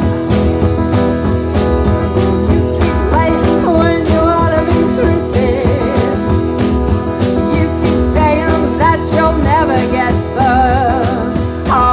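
Live band music: a woman singing into a microphone over acoustic guitar and drums keeping a steady beat; her voice comes in about three seconds in.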